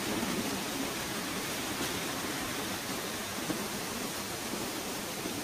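Mountain waterfall cascading down over rocks: a steady rush of falling water.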